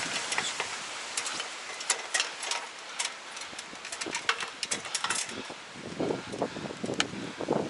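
Scattered snaps, knocks and rustling of branches and wood debris being handled, with a few dull thuds near the end.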